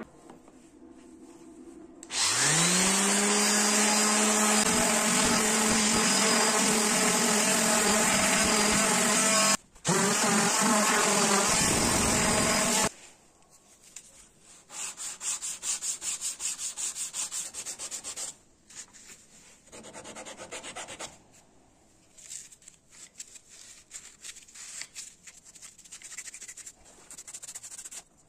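An electric power tool's motor spins up, runs steadily for about ten seconds with one brief break, then stops. Hand sanding with sandpaper follows in quick back-and-forth strokes, more quietly.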